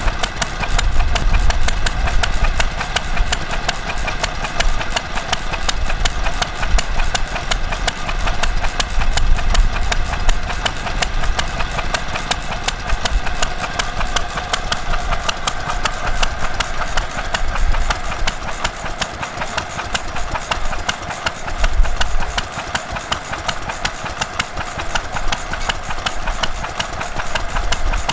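Vintage hopper-cooled single-cylinder stationary engine running steadily with a fast, even beat.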